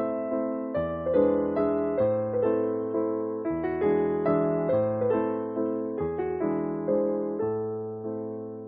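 Piano background music: struck, decaying chords over a bass that changes every second or two, trailing off near the end.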